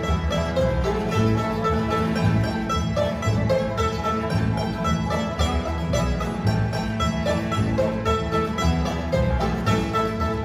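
An acoustic bluegrass band plays an instrumental passage with no singing: banjo, mandolin, acoustic guitars, resonator guitar and upright bass.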